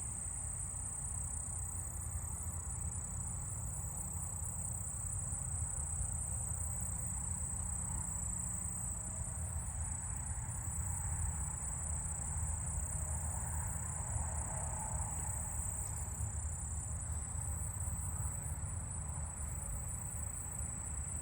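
Steady high-pitched insect trilling from late-summer crickets and katydids, with the faint, barely audible song of a short-winged meadow katydid among it. A low rumble runs underneath.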